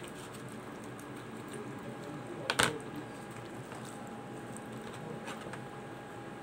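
Small clicks and soft wet handling sounds of a knife cutting into a raw whole chicken on a plastic cutting board, with one sharp knock about two and a half seconds in, over a faint steady hum.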